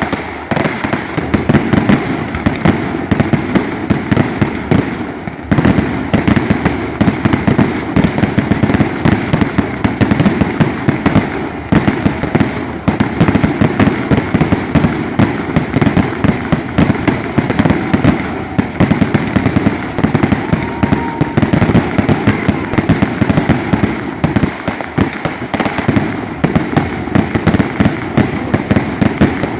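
Fireworks display going off in a rapid, almost continuous barrage of bangs and crackles, many reports a second.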